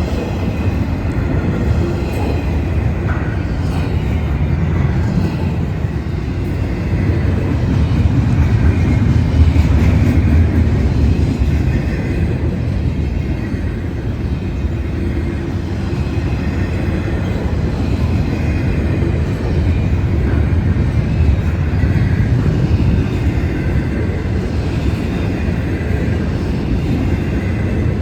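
Union Pacific freight train rolling past, a steady low rumble of railcar wheels on the rails.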